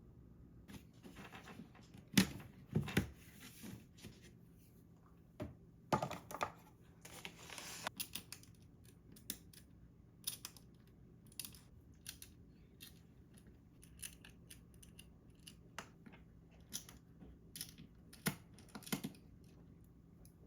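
Hands working on a mechanical keyboard and its parts: irregular small clicks and taps, with a few short rustling or tearing stretches in the first half.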